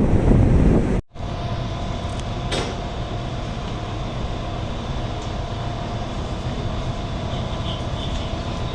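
Wind buffeting the microphone, cut off abruptly about a second in, then a steady machinery drone with a thin, even whine running through it.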